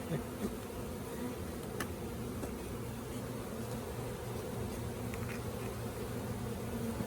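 Many honeybees buzzing steadily around an open hive, a continuous low hum.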